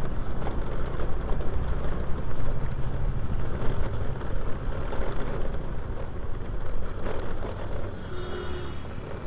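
Wind rumble on a helmet-mounted action camera, mixed with a Hero Maestro scooter running along at riding speed. Near the end there is a short, steady horn toot.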